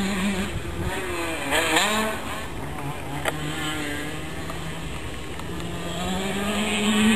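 KTM SX 85 two-stroke motocross bike engine revving as it rides the track, its pitch rising and falling with the throttle, with a quick rev up and down about one and a half seconds in.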